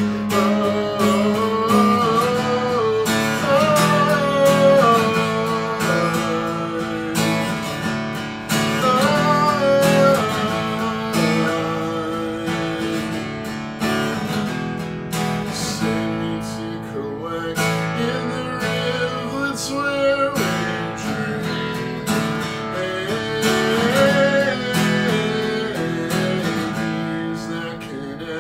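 Acoustic guitar strummed in a steady rhythm, with a man singing over it in several stretches.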